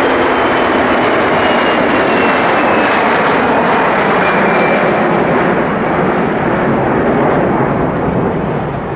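Swiss Airbus A340-300's four jet engines at take-off thrust as it climbs out: a loud, steady jet roar with a thin whine sliding slowly down in pitch over the first five seconds, easing off a little near the end.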